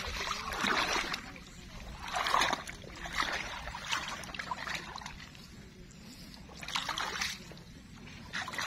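Irregular splashing and sloshing of water in a flooded ditch between field beds, in several short bursts, with faint voices at times.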